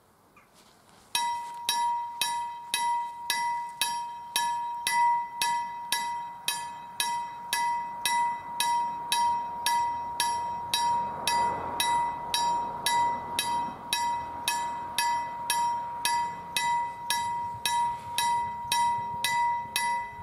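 Level crossing warning bell ringing, starting about a second in, with evenly repeated strikes at about two a second. It signals an approaching train as the crossing barriers start to lower.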